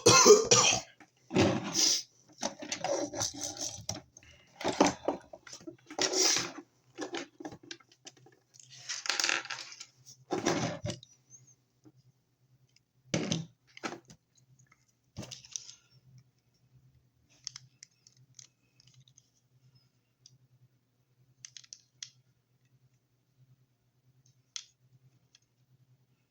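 Plastic Transformers action figures being handled: parts click, rattle and scrape, busily for the first ten seconds or so, then only occasional single clicks.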